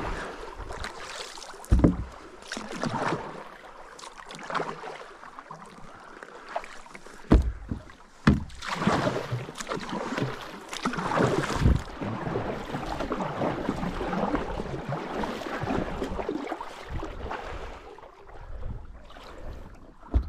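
Kayak paddle strokes: the double-bladed paddle dipping and pulling through calm water in repeated swishing, splashing strokes, with several sharp knocks against the kayak in between.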